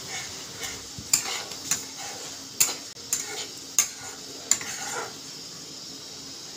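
Spatula scraping and tapping against a kadai as a spice masala fries in oil, with a steady low sizzle beneath; about eight strokes, which stop after about five seconds. The masala is being fried until the oil separates.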